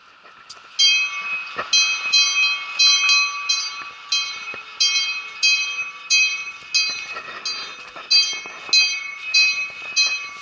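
A metal bell on an outdoor sculpture being struck over and over, starting about a second in. The strikes come roughly two to three a second, unevenly, each ringing on with several clear tones that overlap the next strike.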